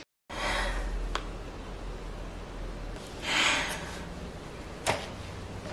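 Low room noise with one short, breathy sniff through the nose about three seconds in, and a few faint clicks and rustles of a person moving and handling things.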